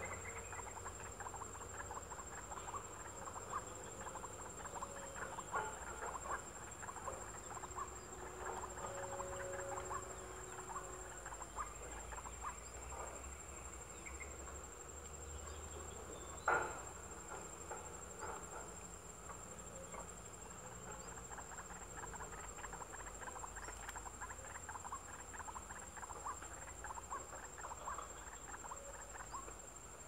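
Outdoor wildlife ambience: a steady high-pitched insect drone, with many small ticks and soft chirps scattered throughout, and one sharp click about sixteen seconds in.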